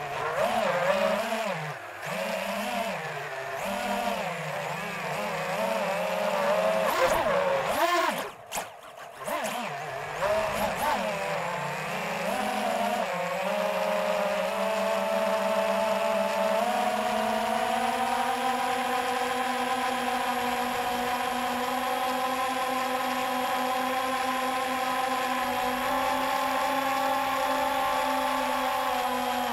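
Electric motors and propellers of a small radio-controlled aircraft heard from its onboard camera: a whine whose pitch wavers up and down with the throttle, dips briefly about eight seconds in, then settles into a steady whine that steps up slightly as it climbs.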